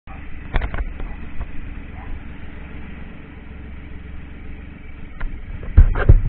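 Motorcycle engine running with a steady low rumble, with a few light knocks near the start and several loud knocks near the end.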